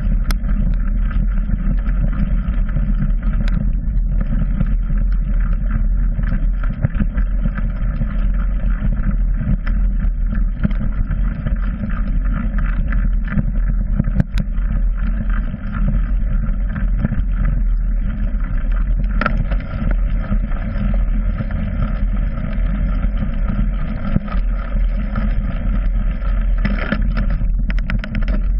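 Steady low rumble of wind and ride vibration picked up by a handlebar-mounted GoPro as a mountain bike rolls along, with a few sharp knocks from bumps.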